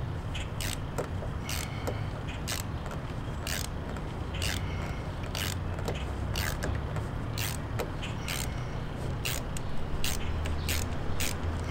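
Self-tapping screws being driven by hand into the hood pin mount: a short scrape about twice a second with each twist. A steady low hum sits underneath.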